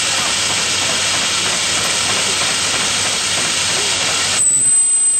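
1904 steam fire engine venting steam in a loud, steady hiss while pumping; the hiss cuts off suddenly near the end.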